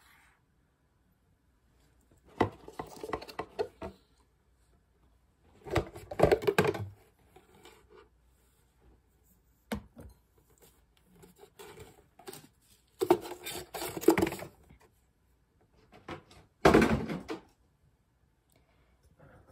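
Cardboard and packaging being handled in several short rustling, scraping bursts while a wine glass is unpacked, with a single sharp click just before ten seconds in as the glass is set down on the table.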